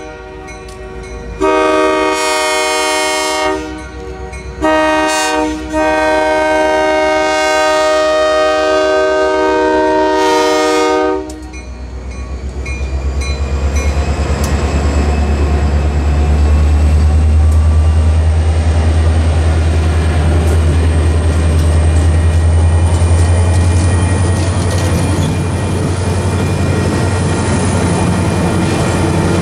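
Diesel locomotive's multi-chime air horn sounding a long blast, a short one, and a final long blast of about five seconds: the grade-crossing warning. The locomotive's diesel engine then passes close by with a heavy low rumble, followed by passenger cars rolling past with steady wheel clatter.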